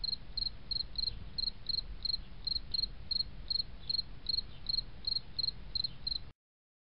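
Insect chirping, cricket-like: high, regular chirps at nearly three a second over a low steady rumble, cutting off suddenly about six seconds in.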